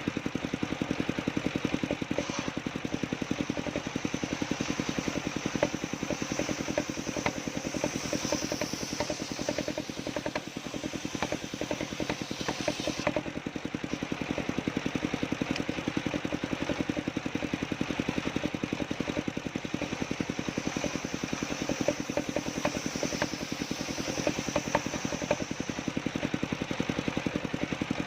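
Engine-driven homemade sawmill running steadily, its engine beating with a fast, even pulse.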